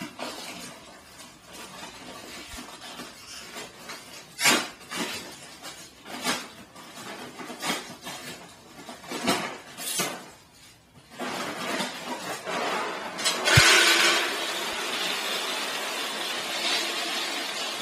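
A large paper-and-plastic bag of dry dog food being opened, with crackling, crinkling and tearing at its top. About two-thirds of the way in, dry kibble begins pouring in a steady rattling stream into a plastic storage bin.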